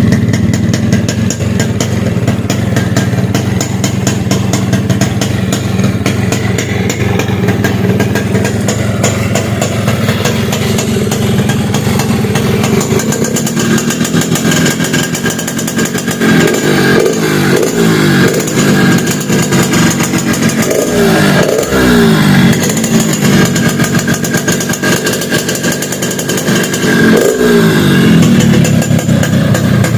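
Yamaha RX-King two-stroke single-cylinder engine running through a hollowed-out (gutted) exhaust silencer, tuned for a crisp, growling note. It idles steadily, then is revved in several short blips over the second half.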